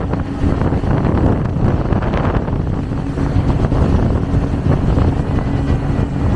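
Speedboat running at speed: steady engine noise and the rush of its wake, with wind buffeting the microphone.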